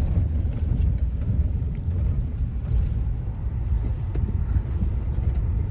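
Steady low rumble of a car's road and engine noise, heard from inside the moving car, with a few faint ticks.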